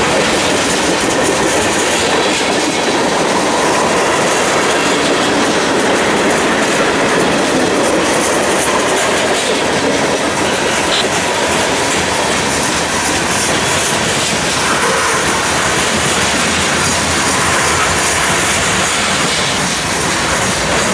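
Norfolk Southern freight train's tank cars and boxcars rolling past close by: a steady, loud noise of steel wheels running on the rails.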